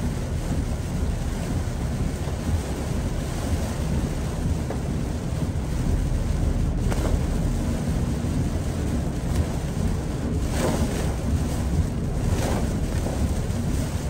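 Heavy typhoon rain on a car driving on a waterlogged road: a steady wash of rain and wet-road noise over a deep rumble, with brief swishes swelling up about seven, ten and a half and twelve and a half seconds in.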